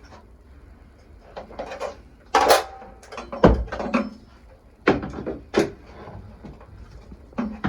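Several sharp knocks and clicks at irregular spacing as tools and parts are handled during hands-on work at the water heater's wiring.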